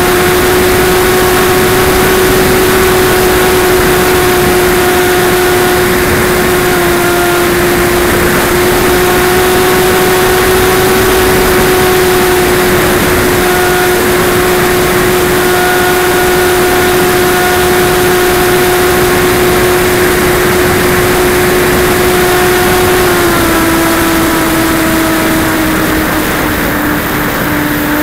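Onboard sound of a Multiplex DogFighter RC plane's electric motor and propeller in flight: a steady whine over loud wind rush on the microphone. The whine drops slightly in pitch in two steps near the end.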